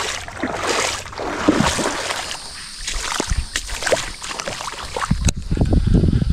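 Shallow river water sloshing and splashing around a wading angler, with small knocks and clicks of handling. About five seconds in the sound changes abruptly to a low rumbling.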